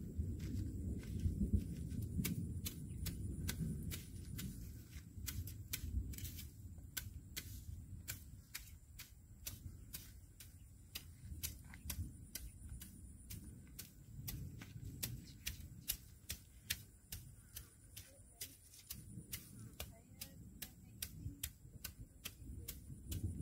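Wind buffeting the microphone as a low rumble that is strong at the start, dies down in the middle and comes back near the end, over a run of sharp ticks, a few a second, and a faint steady high tone.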